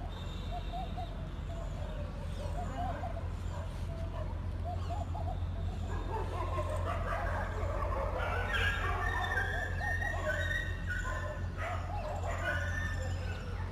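Animal calls: short wavering chirps throughout, then a busier stretch of higher, longer calls from about six seconds in until near the end, over a steady low hum.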